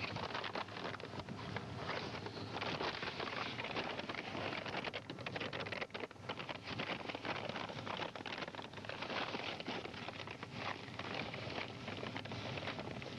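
Steady crackling and rustling noise from a police wireless microphone, with a brief dip about six seconds in.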